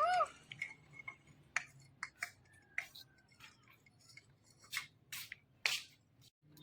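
An Indian ringneck parakeet's meow-like call, a rising then falling tone, ends just after the start. Irregular scratchy rubs and sharp clicks follow.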